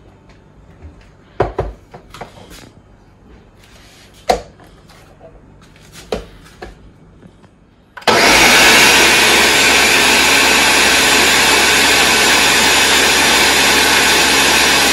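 A few light knocks and clicks, then about eight seconds in a countertop blender switches on and runs at a steady high speed, blending a smoothie of milk, fruit and ice cubes.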